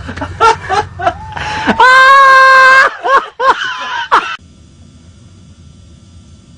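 A person laughing in short bursts, then a loud held scream about two seconds in, followed by a few short cries. It turns quiet for the last two seconds.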